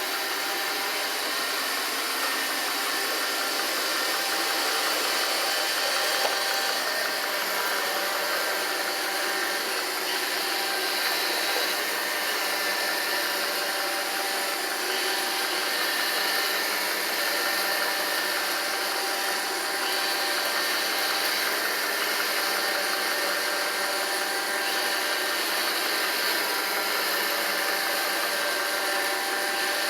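Roomba 780 robot vacuum cleaner running steadily: a constant whir of several fixed tones over an even hiss, with no change in pace.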